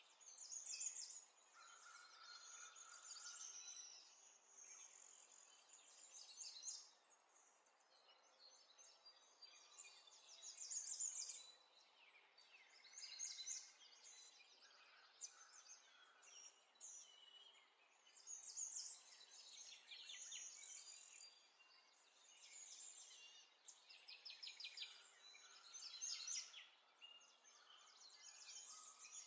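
Faint birdsong: several small birds chirping and trilling in short, varied phrases over a soft hiss.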